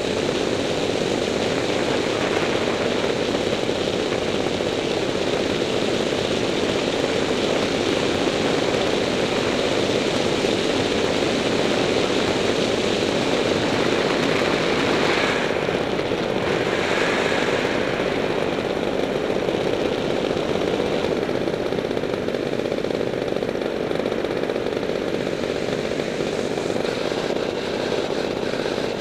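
Paramotor engine and propeller running steadily in flight, a constant loud drone.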